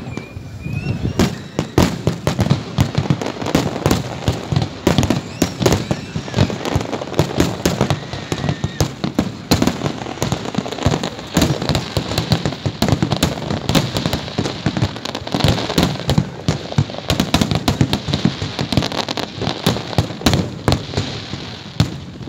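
Aerial fireworks display: a dense, continuous barrage of bangs in quick succession from bursting shells. It builds up about a second in.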